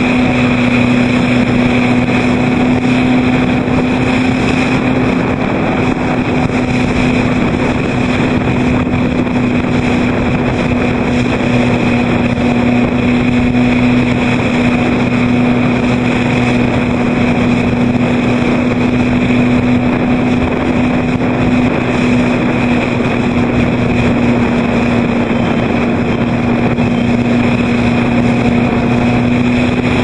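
A motorboat's engine running at steady revs, a constant unchanging hum, with wind noise on the microphone.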